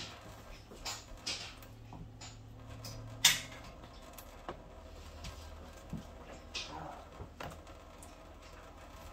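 A cat drinking from a thin stream of tap water falling into a stainless-steel sink: a faint steady trickle with scattered short splashy sounds as its tongue and head meet the stream, the loudest about three seconds in.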